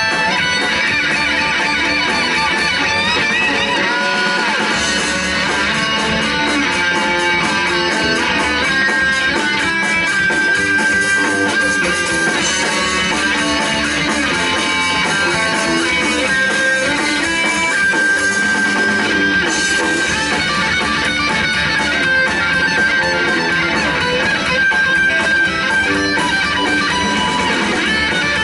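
A guitar, bass and drums trio playing an instrumental piece live, with electric guitar lines over a steady beat.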